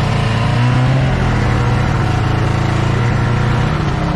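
Snowmobile engine running steadily, picking up a little about half a second in.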